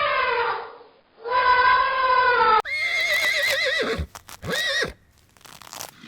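Horse whinnying several times, with loud drawn-out neighs falling in pitch. About three seconds in comes a quavering, wavering neigh, followed by a short one.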